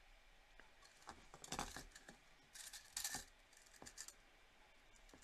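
Faint clicks and light scratching of thin, soft jewellery wire being wrapped around a wire bangle and bead, in a few small clusters of metallic ticks.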